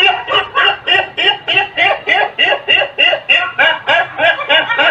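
High-pitched laughter: a long unbroken run of quick, evenly spaced 'ha-ha' pulses, about four a second, each rising and falling in pitch.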